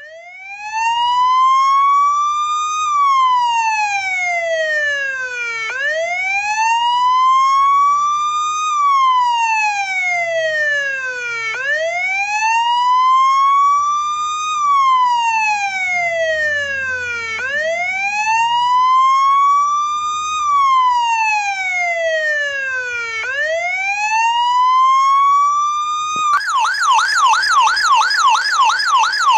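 Police car siren sounding a slow wail, its pitch rising and falling about every six seconds. Near the end it switches abruptly to a fast yelp.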